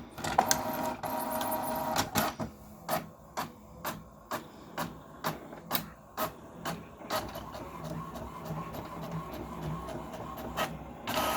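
HP Envy 4500 inkjet printer printing a page. A motor whine comes first, then a run of regular clicks about two a second, then a steady whir, with a brief louder rush near the end.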